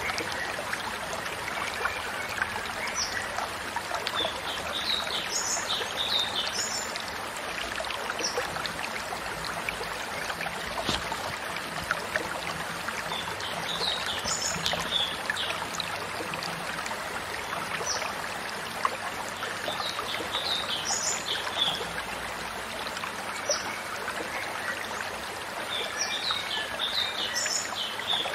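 Steady running stream water, with short bursts of high bird chirps coming back every several seconds.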